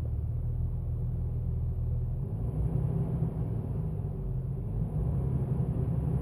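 Jeep Wrangler TJ running at low RPM with a steady low buzz, the buzzing sound that appears at low engine speed.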